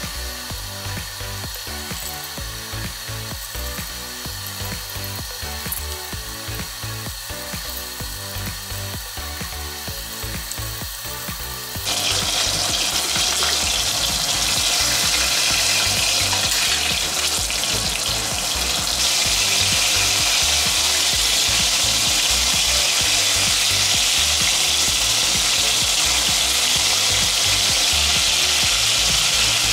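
Pork pieces coated in potato starch shallow-frying in oil in a pot, sizzling. The sizzle jumps much louder about twelve seconds in as more pieces go into the oil, and again near twenty seconds, over background music with a steady beat.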